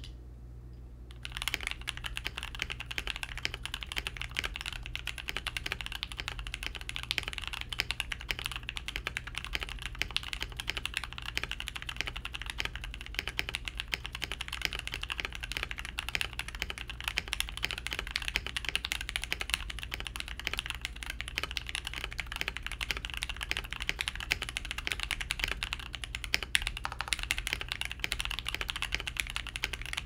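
Rapid, continuous typing on a KBD67 Lite R2 mechanical keyboard with lubed and filmed Gateron Ink Black v2 linear switches and double-shot PBT Cherry-profile keycaps, beginning about a second and a half in. A steady low hum sits underneath.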